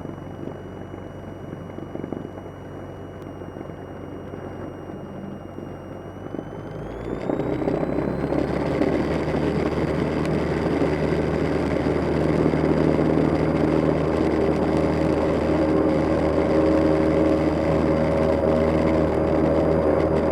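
Cessna 172M's four-cylinder Lycoming O-320 engine running at low power, then opened up about seven seconds in and running steadily much louder: throttle advanced to full power for the takeoff roll.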